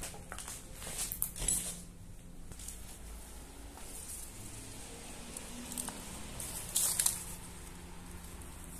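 Footsteps crunching over rubble, litter and dry grass: scattered short crunches and clicks, loudest about a second in and again about seven seconds in.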